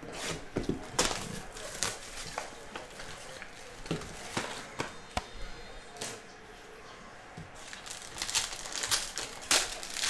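A trading-card box being handled and a foil-wrapped card pack rustled and crinkled, in short irregular crackles. The crackling gets denser near the end as the foil wrapper is torn open.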